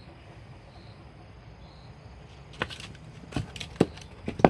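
Split pieces of firewood knocking against each other and the chopping block as they are handled: four or five sharp wooden knocks in the second half, the loudest near the end.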